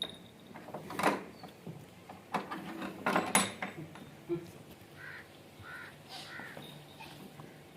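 Several sharp knocks and thuds, then a bird calling three times in short notes.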